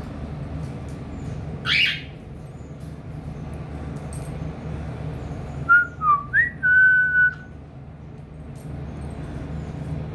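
Cockatiel calling: a short rising chirp about two seconds in, then a few seconds later a quick run of clear whistled notes ending on a held note. A steady low hum runs underneath.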